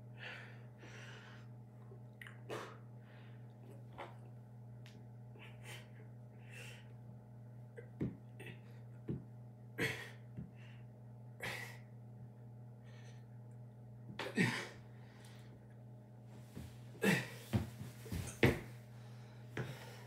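A man breathing hard from push-up exertion: short, sharp, irregular exhales and gasps that come louder and closer together near the end, over a steady low hum.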